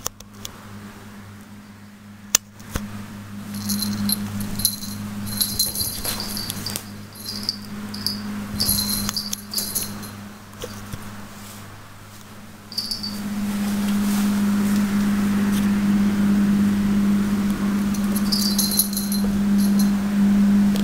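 A small collar bell jingling in short bursts as a cat moves, three times over the stretch, over a steady low hum that gets louder, with a hiss, about halfway through.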